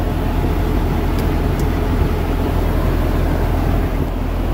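Semi truck's diesel engine idling with a steady low rumble.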